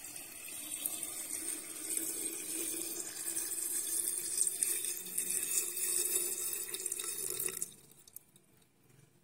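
Warm salt-and-vinegar brine poured in a steady stream into a glass jar of sliced carrots and green chillies, stopping abruptly about seven and a half seconds in.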